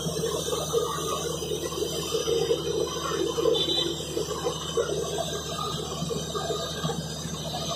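Horizontal directional drilling rig running: a steady engine hum with irregular mechanical rattle over it.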